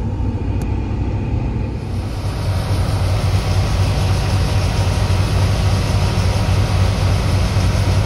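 Steady engine noise heard from inside a vehicle. About two seconds in, it changes to a John Deere combine harvester running close by as it unloads soybeans into a grain truck: a fuller, hissier machine noise over the same low rumble.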